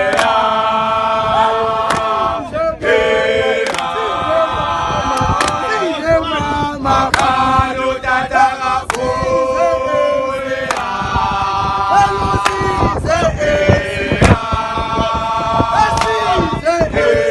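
A group of young men singing a gwijo, a South African group chant-song, unaccompanied in harmony: held chords in phrases broken by brief pauses, with hand claps.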